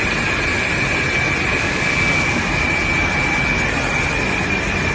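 Large screen printing machine and its sheet-feeding rollers running: a steady mechanical hum and rush with a constant high-pitched whine.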